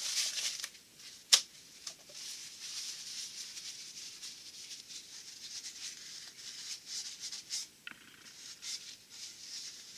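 Rag rustling and rubbing as the inside of a torque converter's hub is wiped clean, with one sharp click about a second and a half in.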